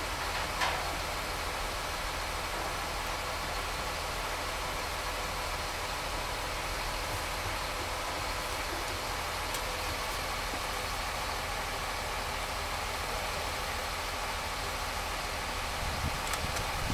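A heavy engine idling steadily on the pile-driving site, with no hammer blows. A small knock comes just under a second in, and a few faint ones come near the end.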